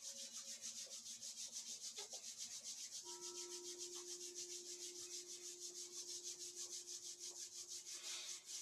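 Two palms rubbed briskly together, a rhythmic swishing at about six strokes a second that stops abruptly near the end: the hands being warmed by friction in a qigong exercise.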